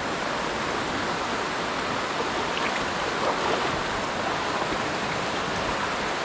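Spring creek water flowing with a steady, even rush.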